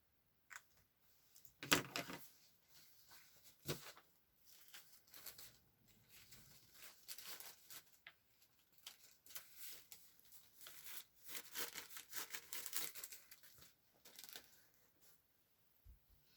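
Paper rustling and crinkling in irregular bursts, faint, with a sharper one about two seconds in and a longer spell of rustling near the end.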